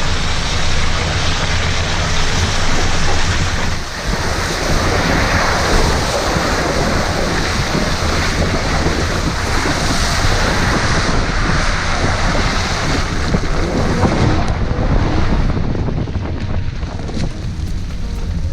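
Loud, steady rushing noise of wind buffeting the microphone, with a low rumble underneath; it eases off near the end.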